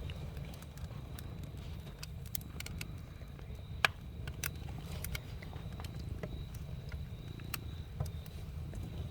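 Campfire crackling: scattered sharp pops and snaps of burning wood, one much louder than the rest about four seconds in, over a steady low rumble.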